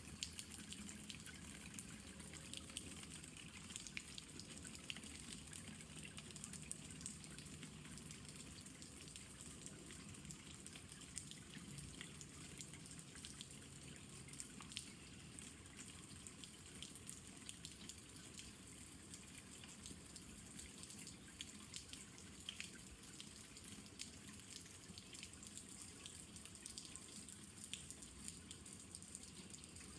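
Soft, steady rainfall: an even hiss of rain with many scattered small drop ticks.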